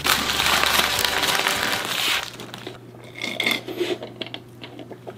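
Paper burger wrapper being unfolded and crinkled by hand, loud for about two seconds, then quieter handling sounds and a sip through a drinking straw.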